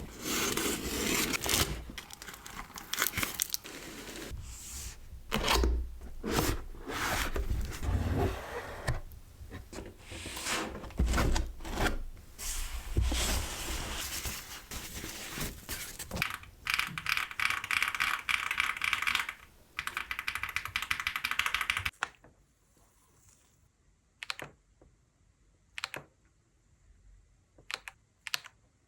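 Packaging of a mechanical keyboard being opened: cardboard and plastic wrap rustling, tearing and scraping for about twenty seconds. Then it goes quiet, with a handful of single sharp clicks.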